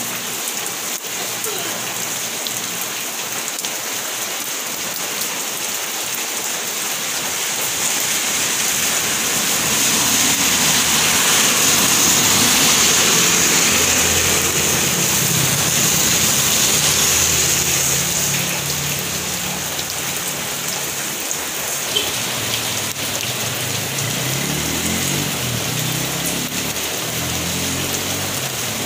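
Steady rain falling on a wet paved road, growing louder for several seconds in the middle, with a single sharp tick about 22 seconds in.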